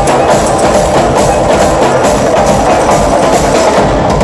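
A percussion ensemble playing live on drum setups and cymbals, with a hand drum, in a loud, fast, steady beat.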